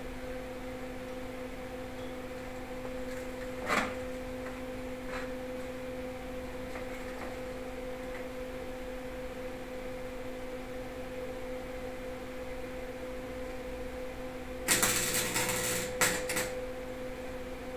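Electric welding arc running on a small steel weed-trimmer muffler for about two seconds near the end, breaking off briefly and striking again. A steady low hum runs underneath, with one short knock about four seconds in.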